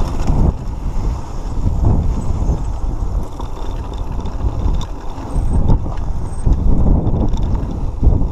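Mountain bike ride on a dirt trail heard from a GoPro on the rider: rumbling wind noise on the camera's microphone and tyres on dirt, rising and falling, with short rattles and clicks from the bike over bumps.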